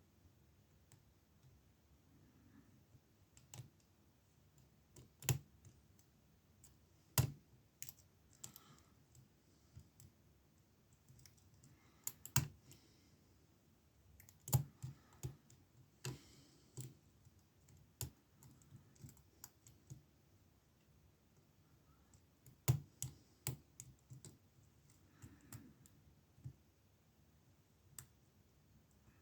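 Faint, irregular metal clicks and taps of a lock pick and tension wrench working the pin stack of an Abus 65/50 padlock, with a few sharper clicks among the small ones.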